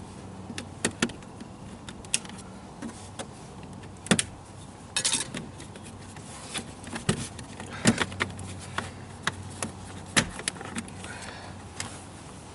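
Scattered light clicks and clinks of hand work on the car's wiring and plastic parts, with a brief rustle about five seconds in.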